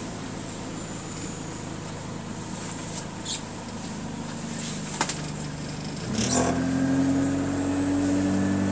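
Bus diesel engine heard from inside the cabin, first idling low with a couple of sharp clicks. About six seconds in, the engine note comes up louder and steadier as the bus pulls away.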